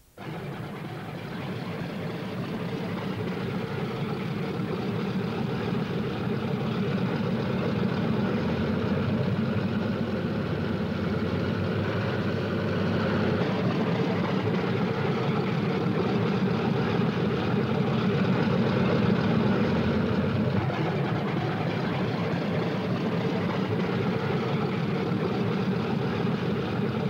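Lockheed P-38 Lightning's twin Allison V-12 piston engines running on the ground with propellers turning. The sound is a steady, dense engine noise that grows louder over the first several seconds.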